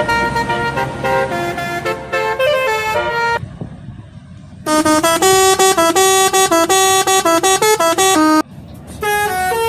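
Bus telolet horn playing quick melodic runs of stepped notes, several tones sounding together. It breaks off for about a second a little past halfway, then plays a louder, faster run, and starts another tune near the end.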